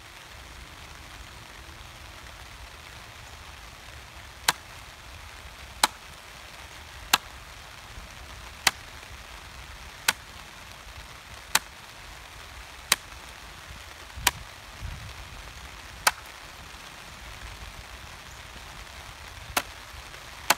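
Electric staple gun firing staples through plastic sheeting into a wooden board: ten sharp snaps, about one every second and a half, beginning about four seconds in, with a longer pause before the last one.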